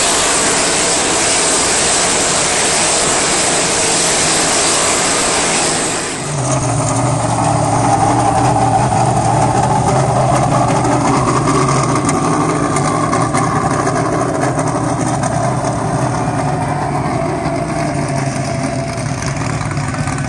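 Dirt modified race cars' V8 engines at speed, a loud, dense wash of engine noise; about six seconds in it gives way to a single modified's engine running close by at low, steady revs.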